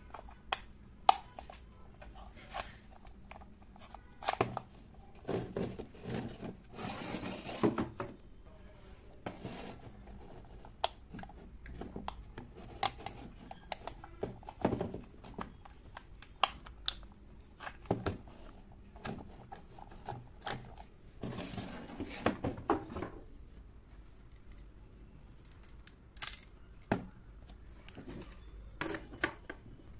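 Miniature dollhouse kitchen furniture being handled: sharp clicks and light knocks as tiny cabinet doors are opened and shut and the pieces are set down and shifted on a wooden tabletop, with a few longer stretches of rubbing and scraping.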